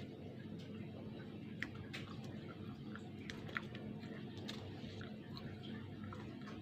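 Chewing and small wet mouth clicks of someone eating a burger and French fries, with a couple of sharper clicks, over a steady low hum.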